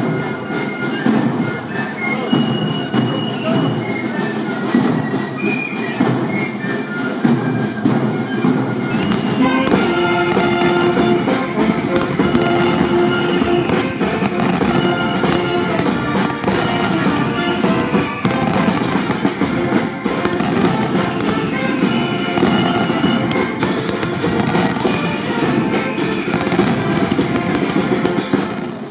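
Background music throughout. From about a third of the way in, a fireworks display sounds under it, with many sharp bangs and crackles.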